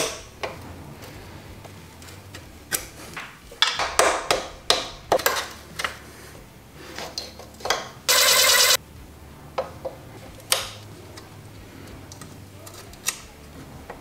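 Metal clicks and clinks of an aftermarket motorcycle footpeg, its spring and pivot pin being worked into the footpeg bracket by hand, with a cluster of knocks around four to five seconds in and a brief buzzy rattle about eight seconds in.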